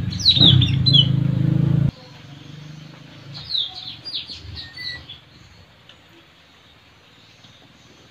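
Blue-rumped parrots (puling) giving sharp, high, downslurred calls: a cluster in the first second and a quick run of calls about three to five seconds in. A loud low hum lies under the first two seconds and cuts off abruptly.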